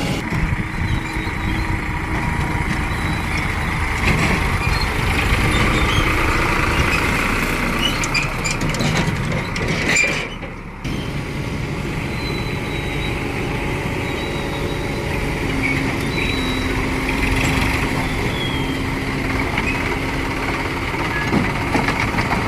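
Diesel engine of a Tata Hitachi Shinrai Prime backhoe loader running steadily as it works loading mud, with a brief drop in the sound about ten seconds in.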